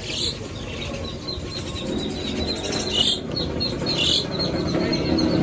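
Three short high-pitched chirping calls, one at the start and two about a second apart near the end, over a steady low background din and a faint, fast high ticking.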